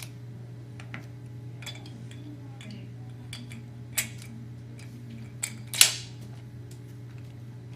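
Door-knob lock parts and a screwdriver clicking and tapping against each other as the knob's shaft is pushed into the spindle and the lock is reassembled: scattered light metal clicks, two sharper ones about four and six seconds in, over a steady low hum.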